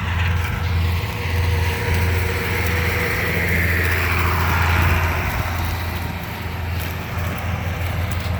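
Diesel engine of harvest machinery running steadily with a deep, constant drone. A higher whine swells and fades about halfway through.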